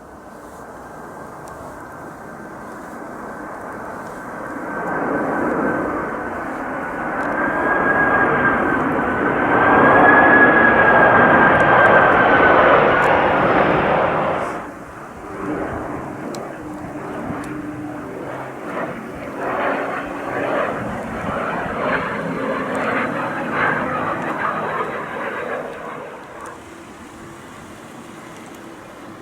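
Jet airliner passing low overhead: a steady high engine whine over a rushing noise that builds to its loudest past the middle, then drops off suddenly, leaving a quieter, rougher engine noise that fades near the end.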